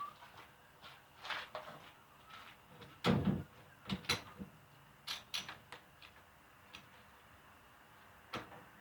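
A refrigerator being handled and shifted: a series of knocks and clunks, with the heaviest thump about three seconds in and sharper knocks shortly after.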